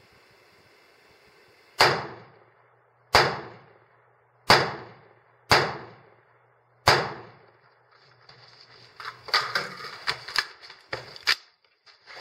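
Five AR-15 rifle shots, about a second apart, each followed by a short echoing tail. After them comes a magazine change: a quick run of metallic clicks and clatter.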